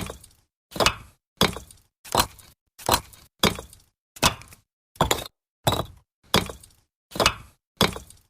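Bricks being stacked: a steady run of sharp brick-on-brick knocks, about one every two-thirds of a second, each dying away quickly.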